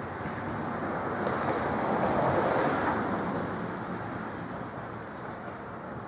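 A vehicle driving past: a rushing noise that swells to its loudest about two and a half seconds in, then fades away.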